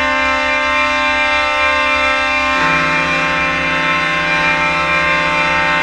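A loud, sustained chord of held pitched tones that shifts to a new chord about two and a half seconds in, over the low, pulsing rumble of an idling truck engine.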